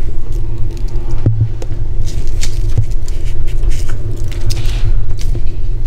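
A loud low rumble with a steady hum under it, and scattered light ticks and patters of coarse salt being sprinkled by hand onto mackerel fillets on a bamboo basket.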